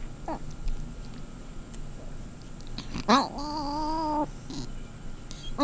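A tabby cat making unusual squonking vocalizations: a brief chirp near the start, then about three seconds in a sharp rising call that levels off into a wavering, held tone lasting about a second.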